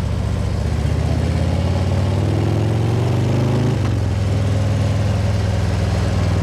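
Harley-Davidson Ultra Limited V-twin engine pulling under way: its note climbs for a couple of seconds, drops sharply about four seconds in as the revs fall, then runs steady. Wind noise rushes over the helmet microphone throughout.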